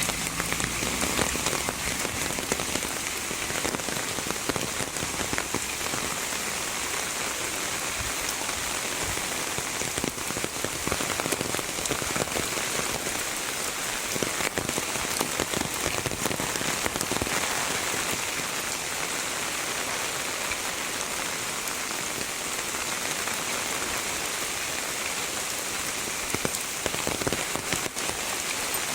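Heavy rain falling steadily: a dense, even hiss of rain, speckled with many small sharp drop hits.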